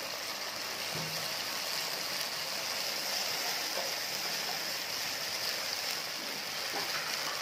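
Hot oil sizzling in a wok as a tempering of spices, curry leaves, chillies and tomato ketchup is stirred with a wooden spatula: a steady, even hiss.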